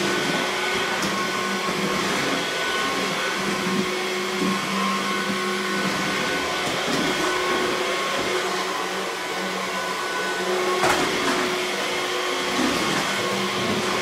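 Comfyer cordless stick vacuum running steadily with an even motor whine as its floor head is pushed back and forth over a hardwood floor, with a short bump near the end.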